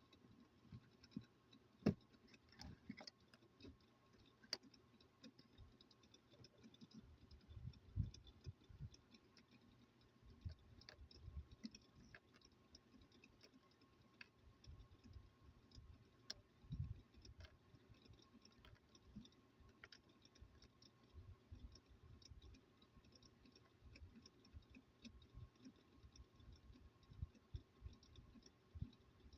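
Near silence with faint, irregular clicks and light taps from small parts of a disassembled phone charger being handled, a few slightly louder knocks among them. A faint steady high hum lies underneath.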